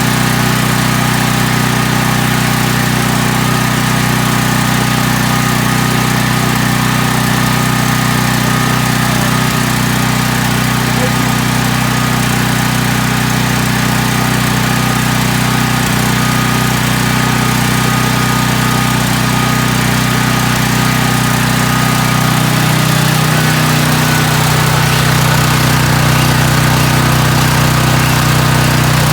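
A portable generator's small engine, just started cold, running steadily. Its tone shifts slightly about 23 seconds in.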